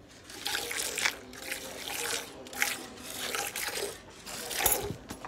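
Milk squirting from a cow's teats into a steel pail during hand milking: a quick hissing squirt about twice a second as the teats are pulled in turn, with one louder squirt near the end.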